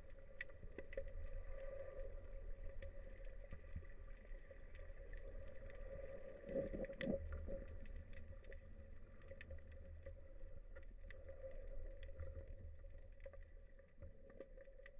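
Muffled underwater sound picked up by a diver's camera: a low rumble and a faint steady hum, with scattered faint clicks and a brief louder swell about seven seconds in.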